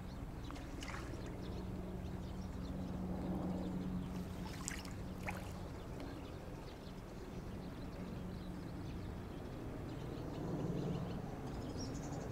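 A steady low mechanical hum under outdoor ambience, with a couple of faint clicks about five seconds in.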